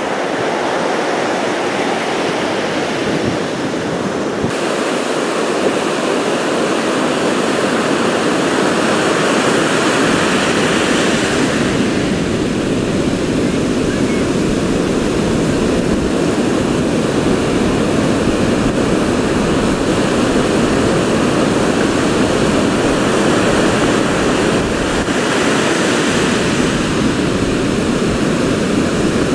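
Heavy surf from large hurricane swells breaking and washing up a beach: a continuous rush of breaking waves and foam, growing somewhat louder after the first few seconds.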